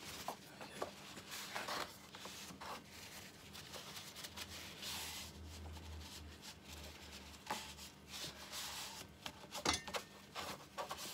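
A cloth or paper towel rubbing and wiping over a small wooden workpiece to clear off dust, with irregular rustling strokes and a few light knocks and clicks near the end.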